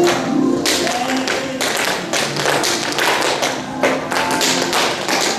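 Several children's tap shoes tapping on a wooden floor, many quick, uneven taps, over a recorded song.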